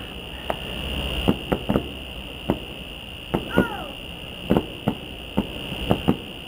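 Distant fireworks display: about a dozen sharp bangs and pops at irregular intervals, over a steady high-pitched whine.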